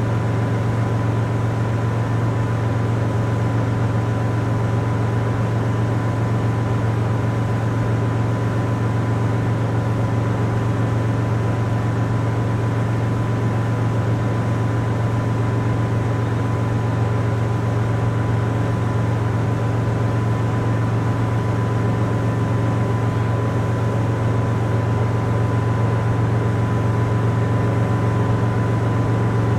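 Motorboat engine running steadily at cruising speed, a constant low drone with a faint steady high whine, over an even hiss of water and wind rushing past the hull.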